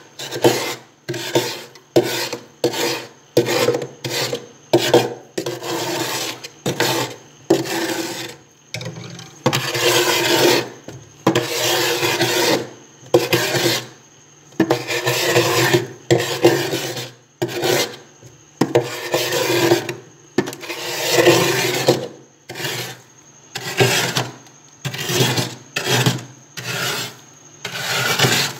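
Frost being scraped off the inside of a freezer in a long run of irregular scraping strokes, some short and some drawn out to about a second.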